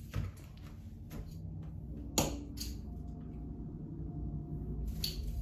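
A few light clicks and knocks from a plastic reel of Christmas string lights being handled and unwound, the sharpest a little past two seconds in, over a low steady hum.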